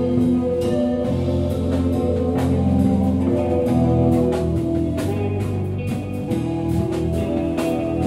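Live band playing: electric guitars and bass over a drum kit, with long held notes that shift every second or so and steady drum hits.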